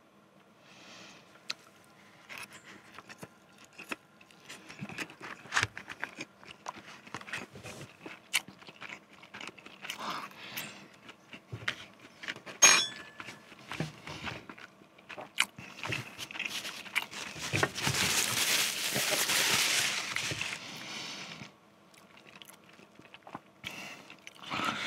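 Close-miked eating of instant noodles topped with popcorn chicken: chewing and biting with scattered small clicks from a fork and paper cup. There is a sharp knock about halfway through, and a louder, noisy stretch of about four seconds near the end.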